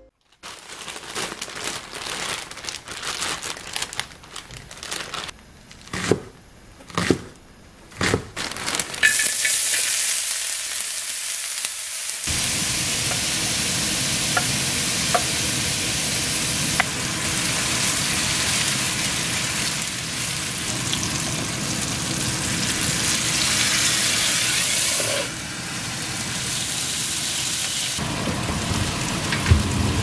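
Pork belly and chopped green onion sizzling and frying on a round griddle pan over a gas flame, stirred with a wooden spatula. A few sharp knocks come in the first several seconds, and from about nine seconds in the sizzling is loud and steady.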